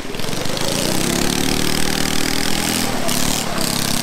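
Small Predator engine on a motorized drift trike, revving up over the first second and running hard through its centrifugal clutch and chain drive, with a brief drop in revs about three seconds in before it picks up again.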